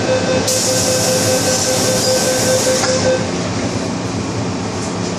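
MTR M-Train electric multiple unit running along the line. A steady whine is held for about the first three seconds, with a loud hiss over it from about half a second in until near three seconds. After that only the train's running rumble remains.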